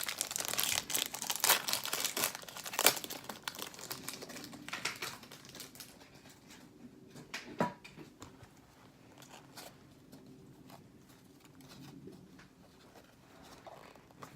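Foil trading-card pack wrapper crinkling and tearing as it is opened, dense for the first five or six seconds, then dying down to light rustling and a few small taps, with one sharper tap about seven and a half seconds in.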